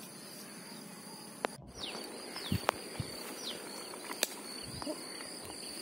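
Quiet outdoor ambience: a few soft footsteps of bare feet through wet mud and weeds, with several short falling bird chirps over a steady high insect drone.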